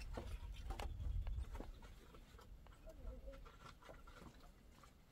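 Wooden poles knocking and clattering against each other as they are stacked upright against a rock, a run of irregular sharp knocks and clicks.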